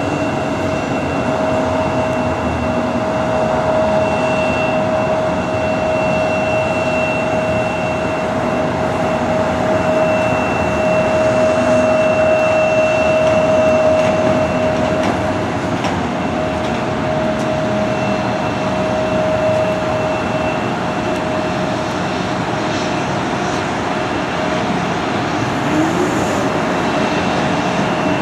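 Airport people-mover tram system running, a steady mechanical hum with a constant whine over a broad rushing noise, swelling a little around the middle as a tram passes.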